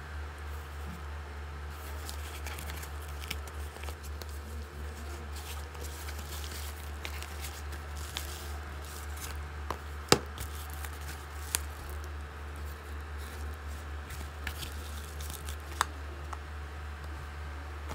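Padded paper mailer being handled, with rustling and crinkling and a few sharp clicks, over a steady low hum.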